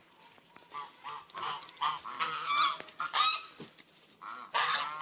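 Domestic geese honking, a rapid run of short repeated calls that begins about a second in and keeps going.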